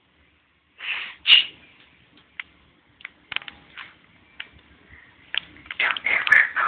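Two short, high vocal sounds about a second in, then scattered clicks and rubbing from the phone being handled as a baby's hand grabs at it, and a denser run of short sounds near the end.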